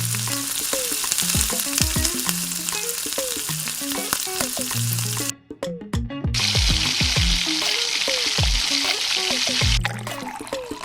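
Steady crackling hiss over background music with guitar and bass notes. It breaks off about five seconds in, and a brighter, higher hiss runs from about six to ten seconds.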